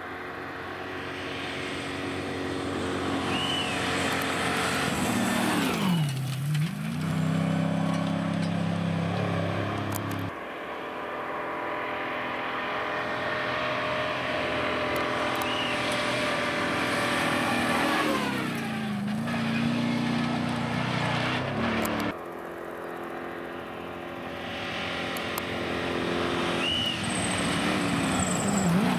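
Rally trucks' engines running hard at speed as they come up the road and go past, one after another. Each engine note climbs, then drops sharply as the truck goes by, three times over.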